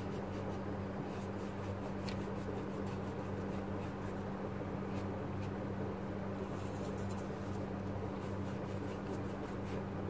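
A paintbrush scrubbing wet watercolour onto textured paper in slanting strokes, a faint scratchy brushing, over a steady low electrical hum.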